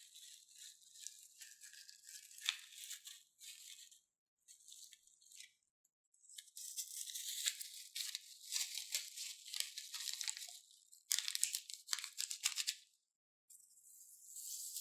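Slime being squished and kneaded by hand, giving bursts of crackling, popping clicks broken by short pauses.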